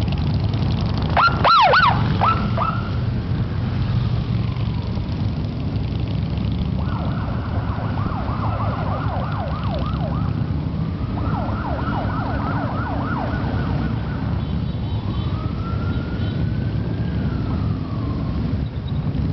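Electronic emergency-vehicle siren running through its patterns: a quick sharp whoop about a second in, two stretches of fast yelping at about four cycles a second, then one long rising and falling wail near the end. Underneath is the steady low rumble of motorcycle engines riding in traffic.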